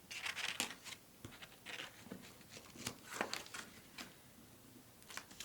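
Cardstock being handled and pressed down by hand: a scatter of light rustles, scrapes and soft taps of paper on paper and the work surface.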